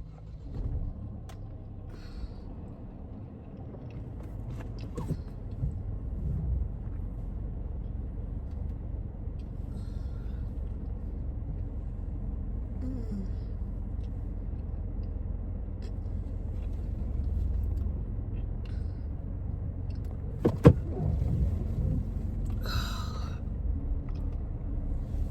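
Steady low rumble of a car's engine and road noise heard from inside the cabin while driving. A single sharp knock about twenty seconds in.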